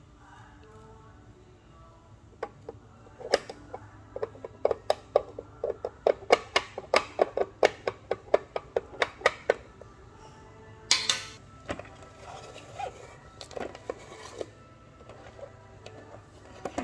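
A quick series of hard plastic clicks and taps from a plastic toy cup, its lid and a scoop being handled, about three to four a second at the busiest. About eleven seconds in there is a short, louder rattle, then a few lighter taps.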